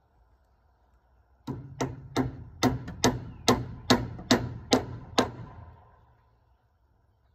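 Hammer driving nails into metal joist hangers on a wooden frame: about ten sharp blows at a steady pace, each with a brief ring.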